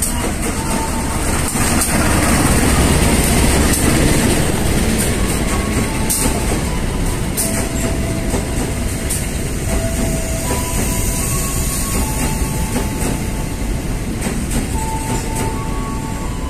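CC203 diesel-electric locomotive passing at speed, loudest about two to four seconds in, followed by a rake of empty flat wagons rolling by. The wagon wheels click over the rail joints, with short high squeals now and then.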